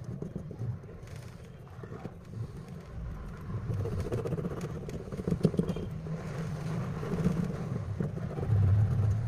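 A low rumble that swells from about three seconds in, under light ticks and scratches of a metal pick scraping old adhesive and glass residue off a phone's frame.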